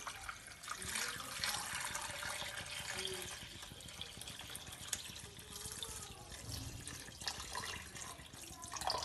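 Water poured from a drinking glass into a wok of raw bone-in chicken pieces, a steady splashing pour, as water is added to make chicken stock.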